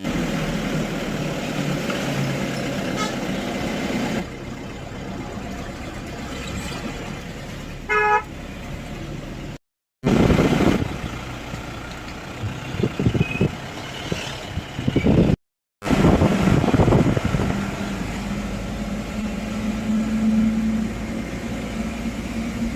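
Outdoor road noise with passing vehicles, and a short vehicle horn toot about eight seconds in. The sound is broken by several abrupt cuts.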